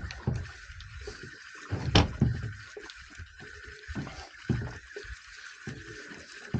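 Water lapping and slapping against a small boat's hull, with a single sharp knock about two seconds in.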